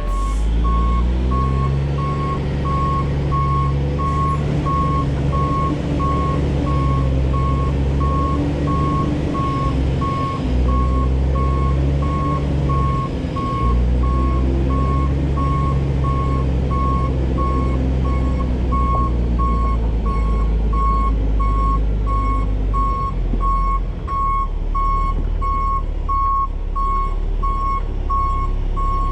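Diesel heavy equipment running and moving, its reversing alarm beeping steadily at one pitch over the low engine drone, which shifts up and down in pitch as the machine works.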